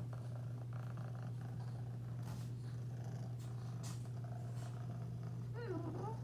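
Cat purring steadily, with a brief mew near the end.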